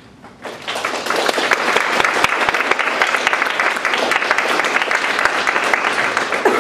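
Audience applauding, beginning about half a second in after a brief hush.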